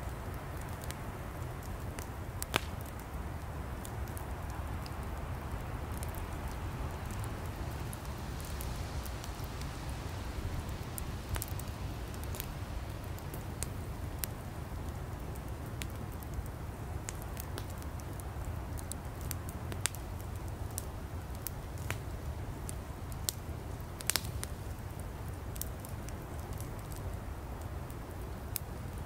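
Campfire of burning firewood, crackling with irregular sharp pops over a steady low rumble of the flames.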